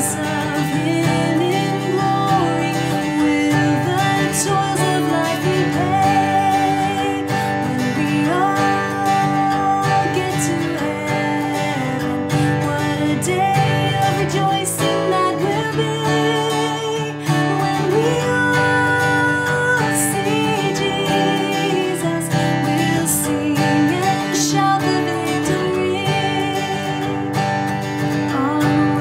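A hymn sung with strummed acoustic guitar accompaniment.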